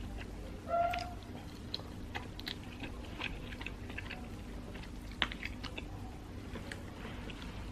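Close-miked chewing of stir-fried glutinous rice, with many small wet mouth clicks. A brief louder tonal sound comes about a second in, and a sharp click just after five seconds.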